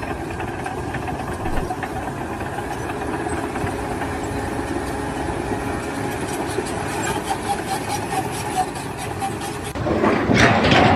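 An engine running steadily, with a louder, noisier burst near the end.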